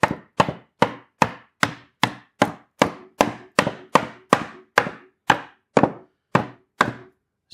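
Rubber mallet tapping cedar beehive box pieces together, seating the dovetail joints: a steady series of about eighteen taps, roughly two and a half a second.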